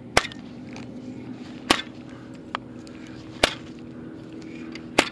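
Four sharp snaps about a second and a half apart as the fishing rod is jerked to rip a Texas-rigged soft plastic lure free of heavy weeds, over a steady low hum.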